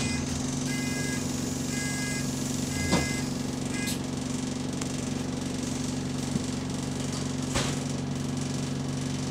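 Bus engine running at a steady low hum while the bus stands, with a door warning beeper sounding a repeated beep about five times and stopping about four seconds in. A sharp knock about three seconds in and a smaller click later.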